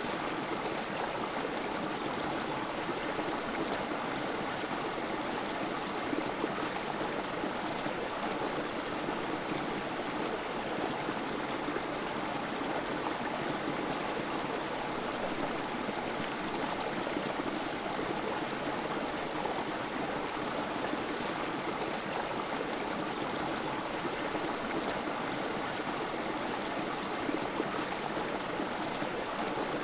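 Creek water trickling over rocks in a small cascade into a pool, a steady, unbroken babble.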